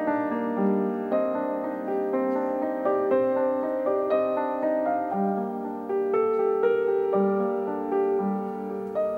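Background music: a piano playing a gentle melody of single notes and chords.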